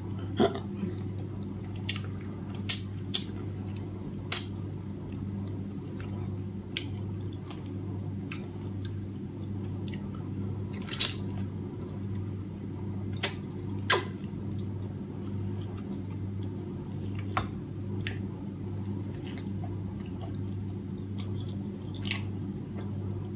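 Close-up eating sounds of a person eating steamed fish by hand: scattered wet mouth smacks and chewing clicks, a handful of sharper ones spread through, over a steady low hum.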